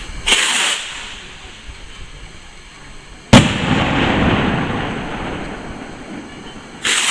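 Fireworks rockets going off: a short hissing whoosh just after the start, then a single loud bang about three seconds in that echoes and slowly dies away, and another short whoosh near the end.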